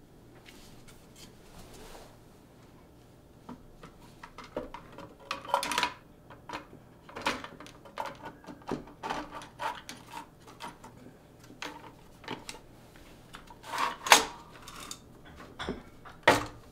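Parts of a B-Variant Caliburn Nerf blaster being handled and fitted together during reassembly: irregular plastic and metal clicks and knocks, the loudest about fourteen seconds in.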